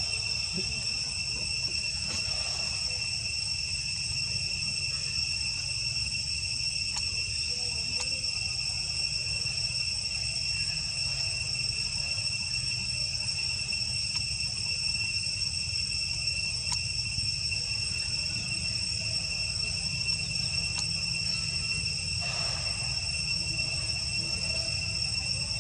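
Steady, unbroken high-pitched drone of insects, held on a few fixed pitches, over a low steady rumble.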